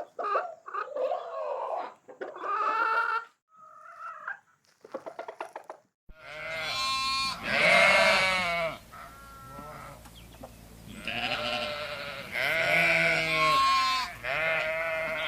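Chickens clucking and calling for the first few seconds, then sheep bleating: a series of long calls.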